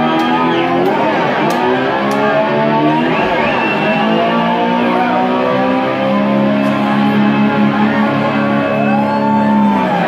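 Live rock band playing loud, amplified electric guitar, with notes sliding up and down in pitch in the manner of a slide guitar imitating a motor scooter, over drums. It settles into a long held note over the last few seconds.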